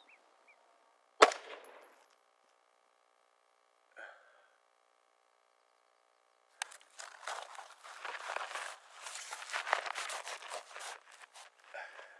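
A single rifle shot about a second in, sharp and trailing off quickly, fired as part of a five-shot zeroing group. Later, several seconds of irregular rustling noise.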